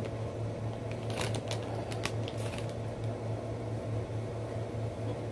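A few short crinkles from a plastic candy bag being handled, over a steady low hum in the room.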